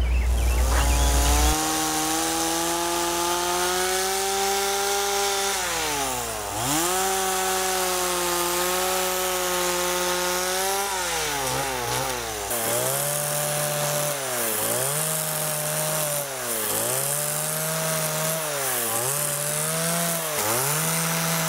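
Chainsaw cutting into a tree trunk while carving. It runs high and steady, dips once, then in the second half its pitch drops and climbs back over and over, about once every second and a half.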